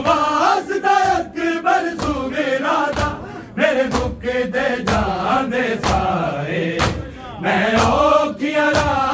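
Men chanting a Punjabi noha, a mourning lament, in a rhythmic sung recitation. Sharp beats land about once a second under the voices, the steady pulse of matam chest-beating.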